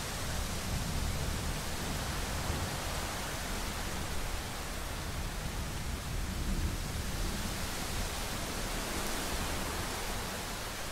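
Thunderstorm rain falling steadily: an even hiss with a continuous low rumble underneath and no distinct thunderclap.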